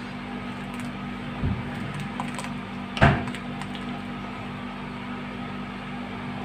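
Metal ladle stirring thick soup in a metal pot, knocking against the pot twice: a dull knock about a second and a half in and a sharper, louder clack about three seconds in. A steady low hum runs underneath.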